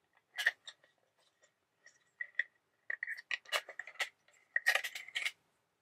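Plastic oscilloscope case parts being handled: scattered light clicks and taps, thicker in the second half as the front frame is worked on.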